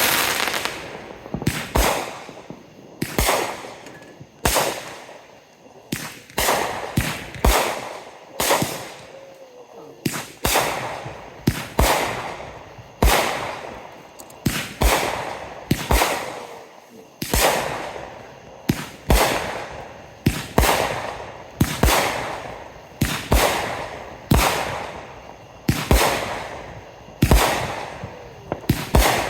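Fireworks going off in a continuous barrage: sharp bangs about one or two a second, each followed by an echoing tail.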